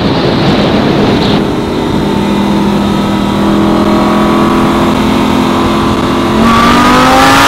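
Lamborghini Gallardo's V10 engine running steadily while cruising, then revving up with a quick rise in pitch as it accelerates about six and a half seconds in.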